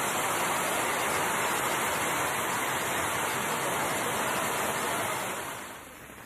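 Heavy rain pouring down, a dense, steady hiss. About five and a half seconds in it drops to a much quieter rain hiss.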